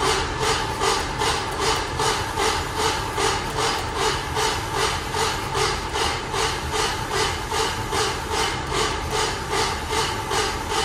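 Chevrolet C10 pickup's engine cranking on the starter motor, turning over evenly about three times a second without firing. There is no spark, which the owner later traces to the coil wire sitting on the wrong terminal.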